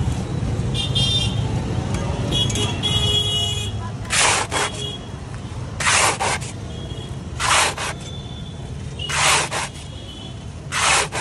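A flat metal spatula scraping through hot sand in an iron kadhai as golgappa shells are stirred and roasted. From about four seconds in the strokes come about every second and a half, each short and loud, over a steady low rumble.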